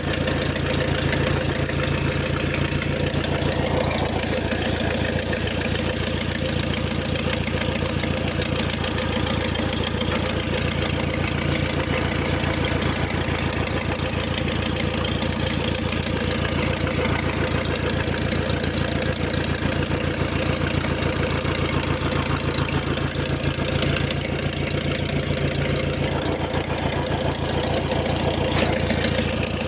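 Fiat Palio engine idling steadily with a fast, even, rhythmic knock running through it: the strange noise from the front end whose cause the owner does not know.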